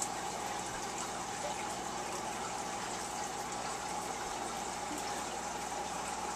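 Aquarium filter running: a steady rush of water with a faint steady hum.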